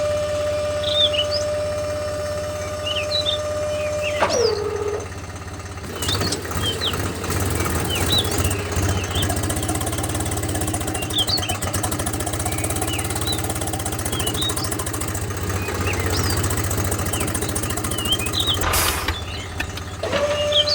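Small electric motor of a DIY miniature tractor whining steadily, dropping in pitch and stopping about four seconds in. A rougher, rhythmic mechanical running follows, and the whine returns near the end. Birds chirp throughout.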